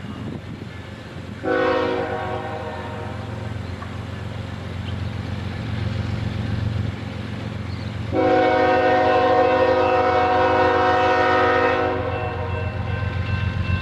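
A Norfolk Southern diesel freight locomotive sounds its multi-tone air horn twice: a short blast about a second and a half in, then a long blast of about four seconds starting around eight seconds in. Under both, the diesel engines rumble steadily as the train accelerates from a stop, growing louder toward the end.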